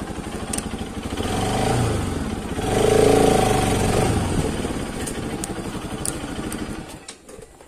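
Bajaj Pulsar RS200's single-cylinder engine running at low speed, swelling briefly twice in revs, then settling and stopping near the end.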